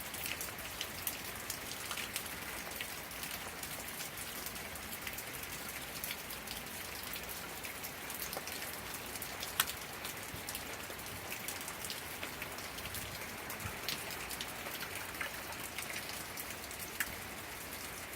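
Steady thunderstorm rain falling, with many individual drops ticking sharply on a hard surface and one louder drop hit about ten seconds in.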